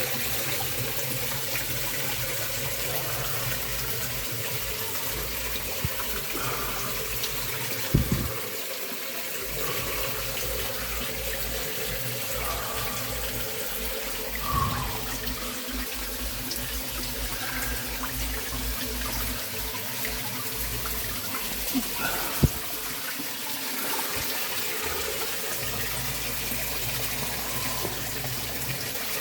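Warm-spring waterfall, water falling and splashing steadily, with a few sharp knocks about eight and twenty-two seconds in.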